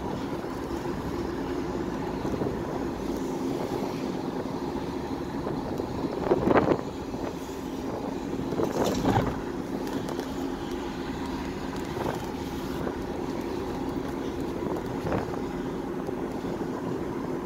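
Steady engine and road noise of a moving road vehicle heard from inside, with wind noise, and two brief louder swells about six and a half and nine seconds in.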